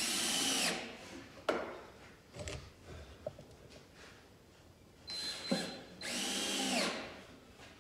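Power drill driving T25 deck screws into a wooden hive box: two runs of the motor, a short one at the start and a longer one about five seconds in, each slowing in pitch as the screw pulls tight. A knock or two sounds in between.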